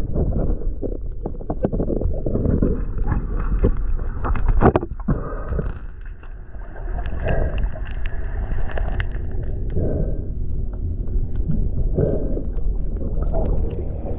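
Muffled underwater work noise: gurgling bubbles and a low rumble, with scattered knocks and scrapes of a tool on the outboard bracket as the old aluminium anodes are pried off.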